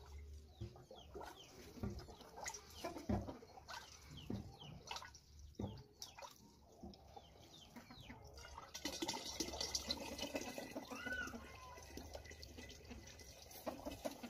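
Water gurgling and splashing inside a plastic barrel in irregular bursts, turning into a steady rush of water about nine seconds in.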